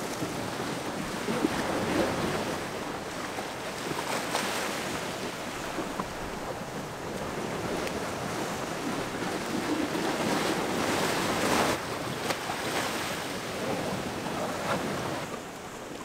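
Waves washing onto the shore in a steady rush that swells louder several times as they come in, with wind.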